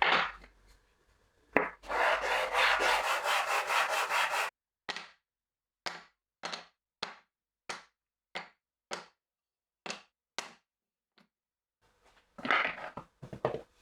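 Strokes of a hand tool working wood, sawing or sanding. A fast run of rubbing strokes gives way to slower single strokes about two a second, with a last short burst of rubbing near the end.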